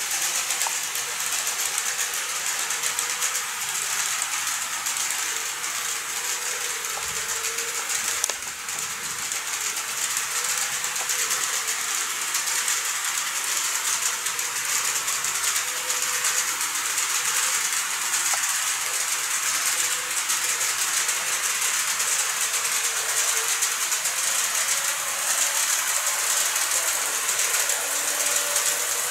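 N-gauge model train, a KATO 701 series EMU, running along the track. It makes a steady rattling running noise from its wheels and motor, with a faint steady whine underneath.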